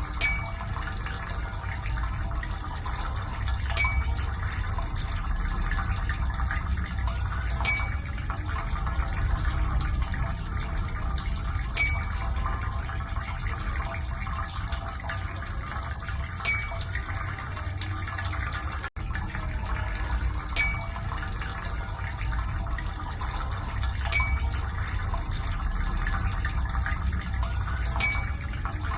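Steady running-water noise with a low rumble, broken by a sharp drip-like tick with a brief ringing tone about every four seconds.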